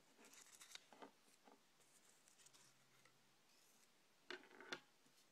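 Mostly near silence, with faint rustling in the first second and two light taps a little after four seconds in: paper sheets being handled and set down on a tabletop.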